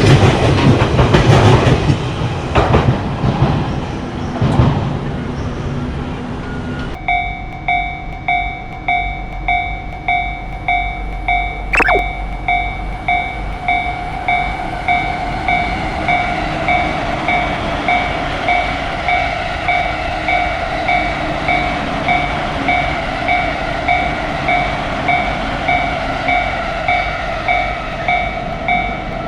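An Odakyu Line electric train passing with rumble and wheel clatter. About seven seconds in it cuts to a Japanese level-crossing warning bell ringing steadily, a little more than once a second. A brief falling tone is heard once, partway through.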